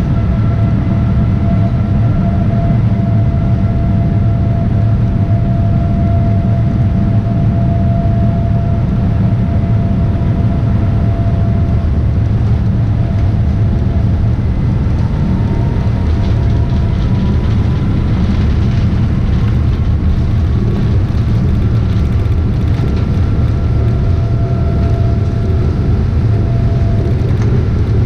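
Boeing 787-9's GEnx-1B turbofan engines running at taxi power: a steady rumble with a whine. About halfway through, the whine fades and a second whine slowly rises in pitch, and the first returns near the end.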